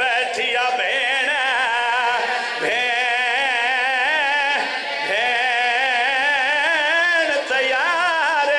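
A man chanting a mournful masaib lament: long held notes with heavy, wavering vibrato, sung in a few long phrases with short breaks between them.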